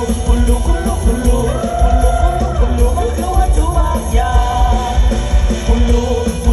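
Live Isan mor lam band music played loud through a stage PA: a steady heavy bass beat under a singer's voice.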